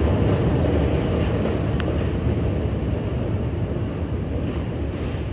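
Subway train running on the tracks, a steady rumble that slowly fades as it moves away.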